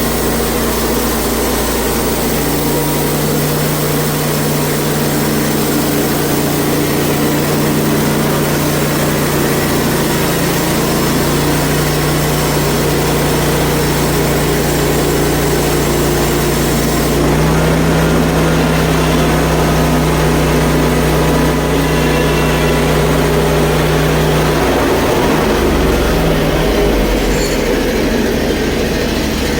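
Portable bandsaw mill running, its engine and band blade working steadily through a hard maple cant. The engine note shifts about 17 seconds in and changes again about 25 seconds in, typical of the load coming on and off the blade.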